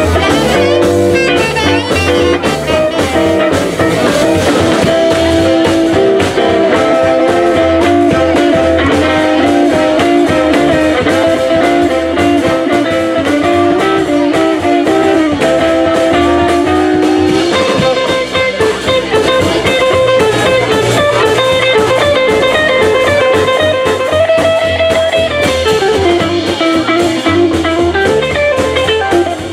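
Live swing band playing an instrumental passage, with electric archtop guitar to the fore over upright bass and drum kit, and saxophone in the band.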